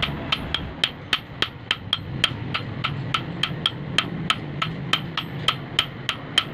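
Hand hammer forging a small hot steel knife blade on an anvil: a steady run of ringing blows, about four a second, with a faint low hum underneath.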